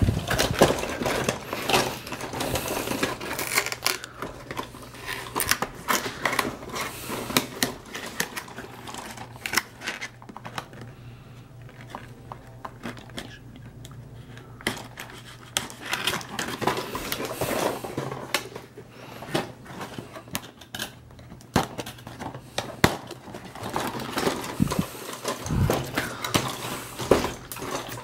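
Hasbro Battle Masters plastic action figures and their handheld controller bases being handled, giving irregular clicks and clatter of hard plastic. The clicking thins out for a few seconds about ten seconds in, then picks up again.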